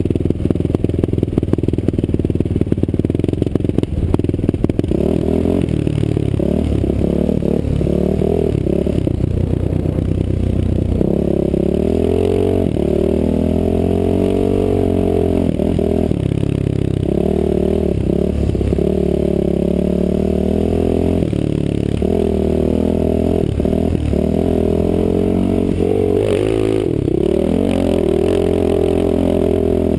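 Off-road motorcycle engine ridden hard through sand, its pitch rising and falling again and again with throttle and gear changes, ragged in the first few seconds.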